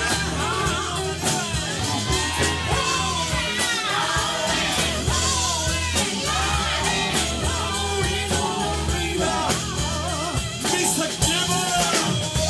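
Live rock-and-soul band playing, with a lead vocal singing over the band.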